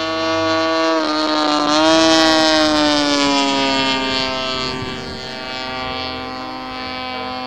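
Engine and propeller of a radio-controlled scale Pilatus PC-21 model plane droning in flight. Its pitch dips and jumps back up just before two seconds in, then slowly falls and settles.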